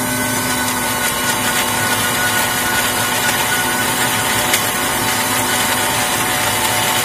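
Philips electric mixer grinder running at a steady speed, its motor whining as it grinds fried onion, tomato and spice masala into a paste in the steel jar.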